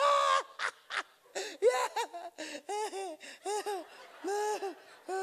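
High-pitched laughter: a loud burst at the start, then a run of short, evenly spaced 'ha' calls.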